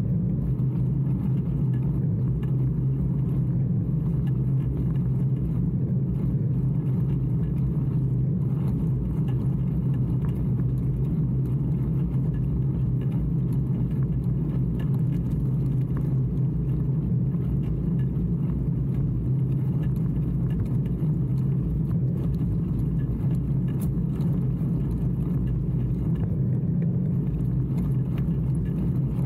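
Steady low rumble of wind on the microphone and bicycle tyres rolling on rough asphalt as the bike rides at speed.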